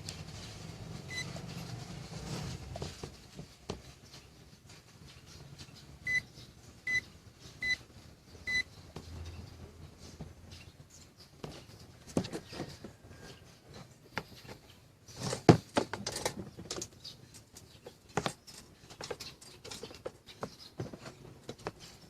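Five short, high electronic beeps: one about a second in, then four in quick succession. Scattered clicks and knocks of handling follow, the loudest about halfway through.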